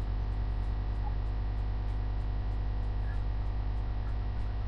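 Steady electrical mains hum with a ladder of overtones and a faint hiss, with a faint high ticking about four times a second.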